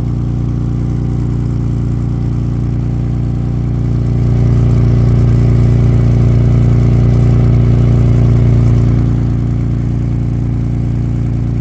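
Car engine idling steadily on a very cold start; the car has an exhaust leak under the driver's seat. The sound gets a little louder for a few seconds in the middle without any change in engine speed.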